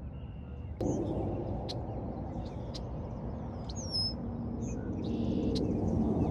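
Birds chirping over a low, steady rumble that comes in suddenly about a second in, with a few sharp clicks.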